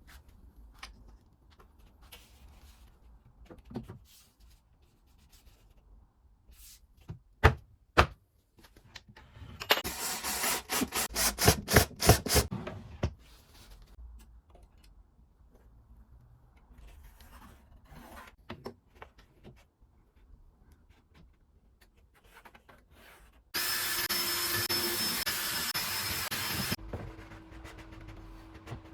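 Woodworking sounds: two sharp knocks, then about three seconds of fast rhythmic rubbing or sawing strokes on wood. Later a power tool runs loudly for about three seconds and then carries on more quietly.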